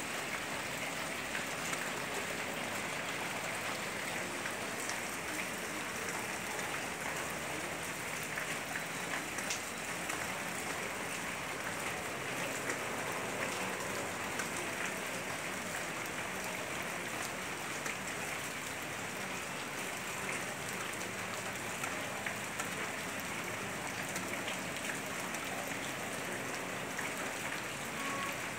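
Heavy rain falling steadily on corrugated roofs, an even hiss of rain with scattered drop ticks.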